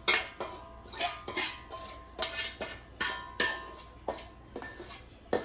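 A metal spoon knocking repeatedly against the rim of a cooking pot, about two or three knocks a second, each leaving a short ringing tone from the pot.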